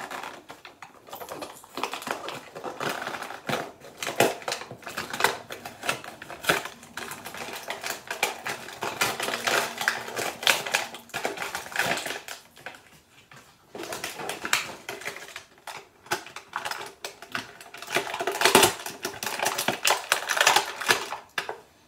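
A Bakugan toy box and its packaging being opened and handled: an irregular run of sharp clicks, crinkles and rustles that eases off briefly about halfway through, with its loudest bunch near the end.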